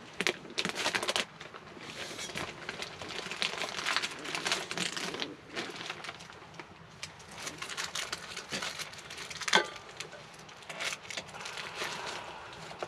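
Plastic packaging crinkling and rustling as it is handled, in irregular crackly bursts, with one sharp click about nine and a half seconds in.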